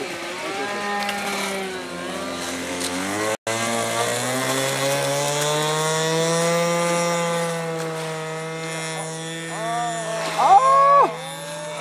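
Small engine of a radio-controlled biplane seaplane running up for takeoff: its pitch rises slowly as the model speeds across the water and lifts off, then holds steady. Before an abrupt cut about three seconds in, another model-plane engine is heard with a slowly falling pitch.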